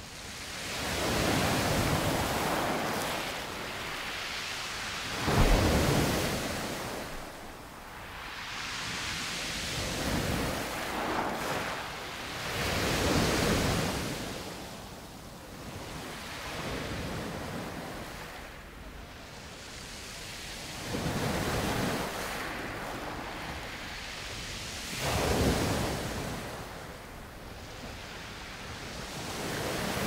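Sea waves breaking and washing onto the shore, a surge every few seconds, with a heavier crash about five seconds in.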